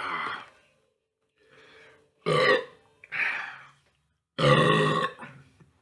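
A man belching repeatedly, four loud belches with a fainter one between, the last one the longest, after gulping carbonated malt liquor.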